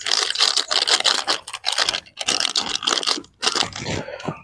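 Crackly rustling and crinkling of a spice packet being handled as chicken kebab masala is added to the chicken, with brief pauses about two seconds in and near the end.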